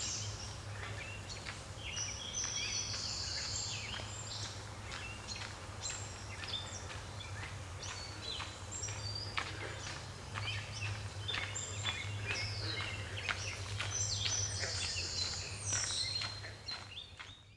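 Several birds chirping and calling in quick short notes, with a steady low hum underneath.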